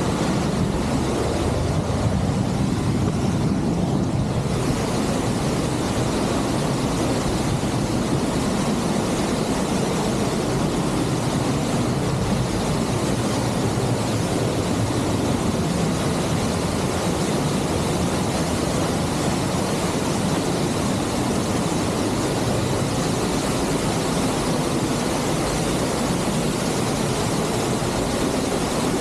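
Steady loud noise of the Sgwd yr Eira waterfall pouring down close to the microphone, as heard from the path behind the curtain of falling water.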